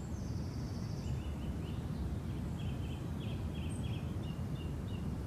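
Outdoor ambience: a steady low rumble with small birds chirping, a high trill about a second in and a quick run of short chirps through the middle.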